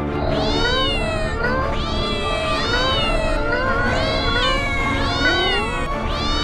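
Several cats meowing over and over, their rising-and-falling meows overlapping one another.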